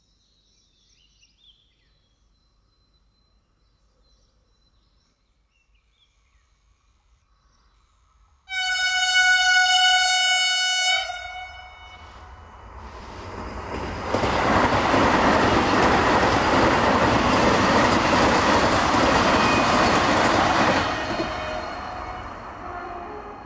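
Near silence at first, then the Vande Bharat Express electric trainset sounds one steady horn blast lasting about two and a half seconds. It then runs past at speed, a rushing wheel-and-rail noise that builds, stays loud for about seven seconds and fades near the end.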